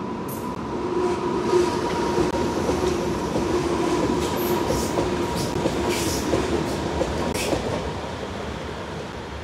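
Red S-tog electric commuter train passing on the tracks below, with a steady hum and a few sharp clicks of the wheels on the rails. It gets louder about a second in and fades near the end as the train moves away.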